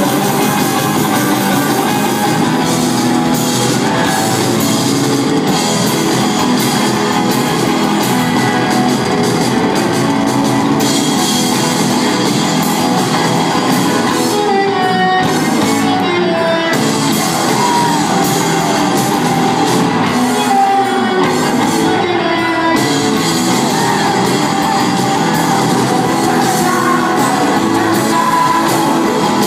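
A rock band playing live, with electric guitars, bass, drums and sung vocals, heard from the crowd in a large hall.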